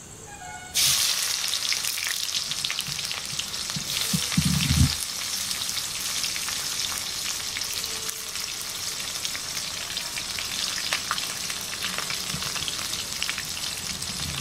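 Sliced onions dropped into hot oil in a kadai, bursting into a loud sizzle about a second in that keeps going with crackling. There is a brief low knock around the middle.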